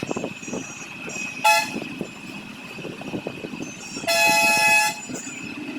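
Vehicle horn honking twice: a short toot about a second and a half in, then a longer honk of nearly a second, the loudest sound here, over street noise.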